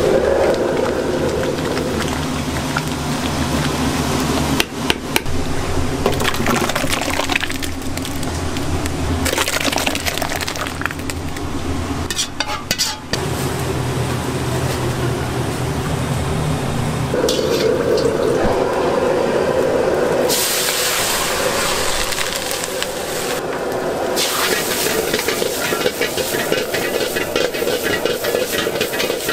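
Wok cooking on a commercial gas burner: the burner's steady low roar, a ladle stirring and scraping in the wok, and food frying in it. The sound changes abruptly several times as different stretches follow one another.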